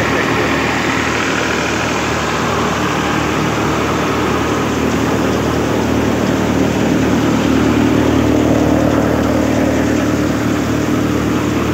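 Tractor-driven paddy thresher running steadily: the tractor's diesel engine under load and the threshing drum churning paddy, as one continuous mechanical drone that grows a little louder after about seven seconds.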